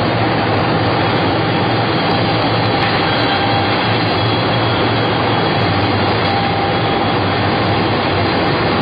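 Baby diaper production machine running: a steady, loud mechanical noise without a break, with a faint steady whine in it.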